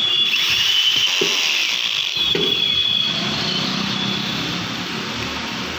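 The screws that hold a new field coil in a demolition hammer's housing are being tightened with a tool: a continuous mechanical whirring and ratcheting with a high whine that rises and falls.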